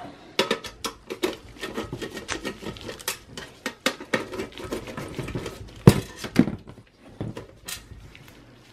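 Phillips screwdriver taking screws out of the sheet-metal optical drive cage of a Dell Inspiron 660s desktop: a quick run of small metallic clicks and taps, with a sharper knock about six seconds in and a few last taps after it.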